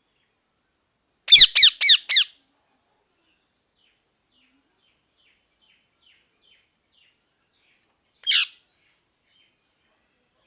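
A parrot squawks four times in quick succession, each call harsh and falling in pitch. Faint short chirps follow, then one more single squawk near the end.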